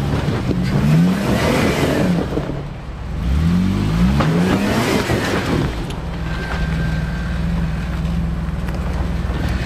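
Off-road 4x4 engine crawling over rocks, revving up in two rising surges, then settling to a steady low run for the last few seconds.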